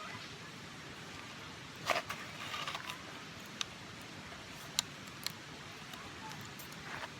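Scattered light knocks and clicks over a steady background hiss, with a louder knock about two seconds in followed by a short rustling scrape.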